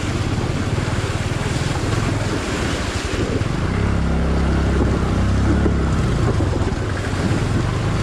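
Bajaj Boxer 150X's small single-cylinder four-stroke engine running under load as the motorcycle rides through a shallow, fast-flowing rocky stream, with rushing, splashing water and wind on the microphone. The engine note becomes steadier and stronger about three and a half seconds in.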